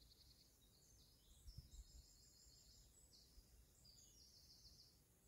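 Near silence: faint high-pitched birdsong in a string of short chirping phrases, over a low wind rumble on the microphone.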